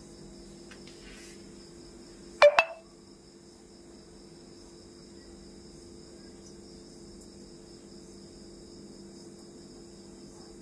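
Crickets trilling steadily, high-pitched, over a low steady hum. About two and a half seconds in, a short, loud double sound with a brief ringing tone.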